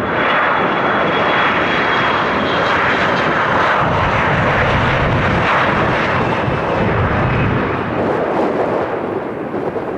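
Jet airliner's engines at takeoff power on a departure, a loud, steady rushing jet noise. A deeper rumble swells in the middle and eases near the end.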